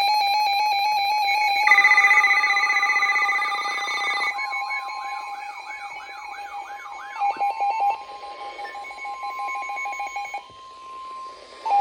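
Layered electronic Emergency Alert System alarm tones ahead of a tornado warning: a steady pulsing tone with repeating warbling sweeps over it. A steady higher tone joins about four seconds in, the whole fading gradually, with a short beep near the end.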